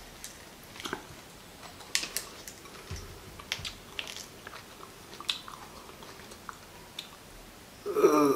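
Close-up eating and handling sounds of raw agati flowers: soft chewing with scattered small clicks and crackles as the petals are pulled apart by hand and dipped in chili salt.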